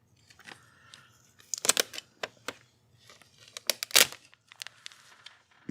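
Low-noise translucent packing tape being pulled off its roll and handled, very quiet: a faint hiss with scattered sharp crackles and clicks, the loudest about four seconds in.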